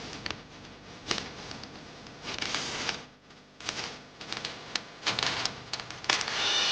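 Crackling, rustling paper in irregular bursts with sharp clicks: a letter being handled and unfolded.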